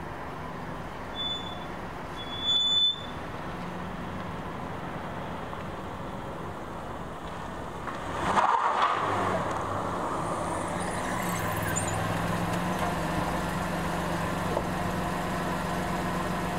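Dodge Grand Caravan running, with a steady low engine hum. Two short high beeps come in the first three seconds, and a loud, brief noisy rush about eight seconds in, after which the hum is louder.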